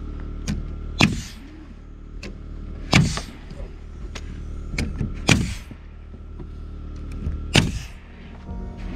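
Ridgid pneumatic framing nailer firing four loud nail shots about two seconds apart, each followed by a brief hiss of exhaust air, as it drives nails through OSB roof sheathing into the rafters. A steady low hum runs underneath.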